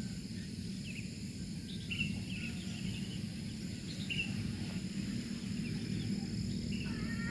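Outdoor rural ambience: small birds give short chirps several times over a steady high insect drone and a low rumble of background noise.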